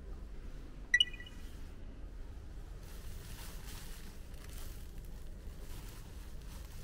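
A single short electronic beep about a second in, followed by a few seconds of faint rustling over a low steady hum.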